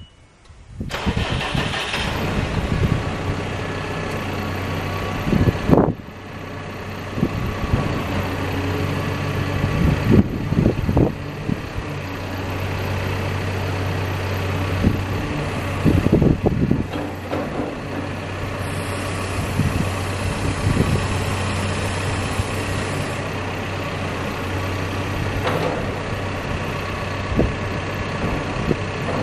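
CAT backhoe loader's diesel engine starting about a second in, then running at a steady idle, with a few brief louder bursts along the way.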